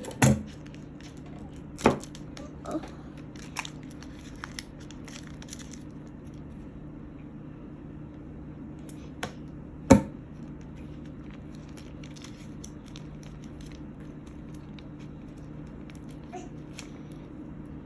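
Scattered sharp clicks and taps from small objects being handled, the loudest about ten seconds in, over a steady low hum.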